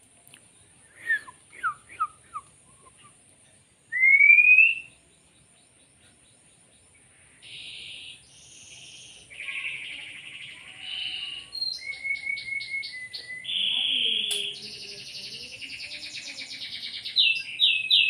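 A songbird singing. A few short falling whistles come first, then a clear rising whistle about four seconds in, and from about halfway a long, loud run of varied chirps, trills and harsh buzzy phrases.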